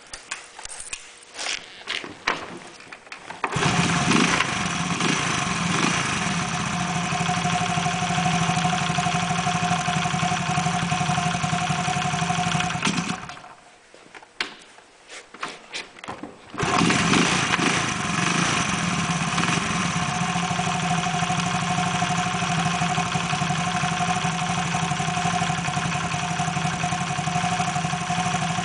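An engine cranked and started after a few clicks, running steadily for about nine seconds, shut off, then started again and running evenly; the owner says its abnormal noise is now fixed.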